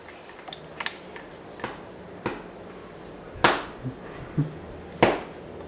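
Irregular sharp knocks and clicks, about eight of them, the loudest about three and a half seconds in and another near the end: a utensil knocking against an upside-down cake pan as it is worked to flip it.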